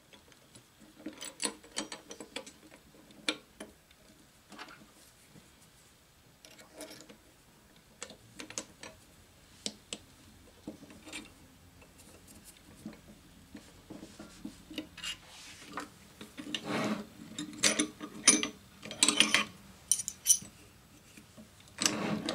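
Small metallic clicks and clinks of a 13 mm wrench and steel fittings as the mounting pins are bolted onto a 5-inch gauge railway truck, with a run of louder knocks in the last few seconds as the metal truck is handled and set down on the wooden bench.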